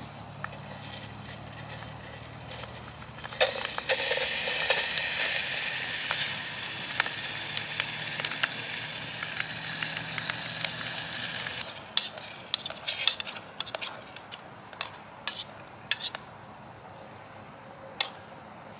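Food sizzling in a hot metal billy can from about three seconds in until about twelve seconds in, then a spoon clinking and scraping against the pot as the food is stirred.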